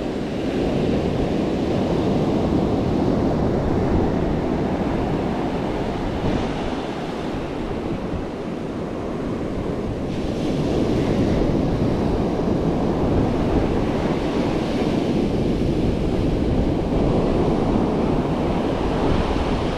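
Ocean surf breaking and washing up a sandy beach, swelling and easing as the waves come in, with wind on the microphone.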